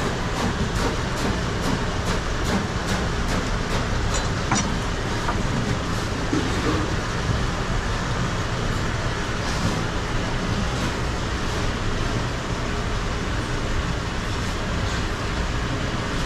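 Steady rumbling mechanical background noise with scattered faint clicks and knocks.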